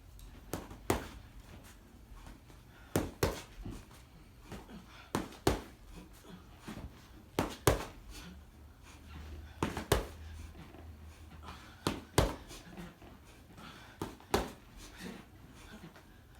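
Sharp thuds of a workout drill, mostly in quick pairs about every two seconds.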